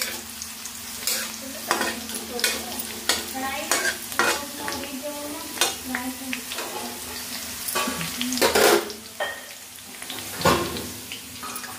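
Flat metal spatula stirring and scraping chopped green chillies sizzling in hot oil in an aluminium kadai, in irregular strokes over a steady sizzle.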